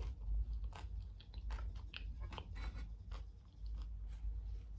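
A person chewing a crunchy fried corn tortilla tostada close to the microphone, with irregular sharp crunches several times a second.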